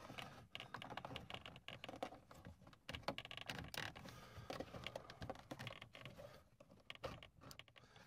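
Faint, irregular small clicks and rattles of a 1984 VW Rabbit GTI headlight switch, its metal bracket and plastic wiring connector, being worked by hand through the dash opening.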